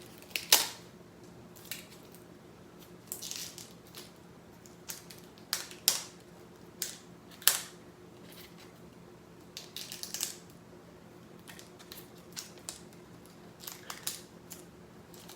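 Rubber bands being pulled off a fingerboard press mold: scattered sharp snaps and taps with some softer rubbing between them. The loudest snaps come about half a second in and around six and seven and a half seconds in.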